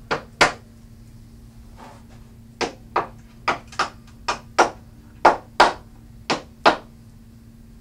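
A mallet knocking on the hardwood bed frame at the top rail and leg joint, seating the joint tight. There are about a dozen sharp knocks, mostly in quick pairs, with a pause of about two seconds after the first two.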